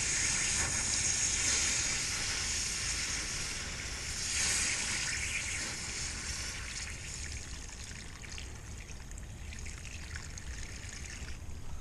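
Garden-hose water spraying onto the hot bend of a 3/4-inch hot-rolled steel round bar, hissing and sizzling as it turns to steam while the steel is quenched. The hiss swells again about four seconds in, then slowly fades.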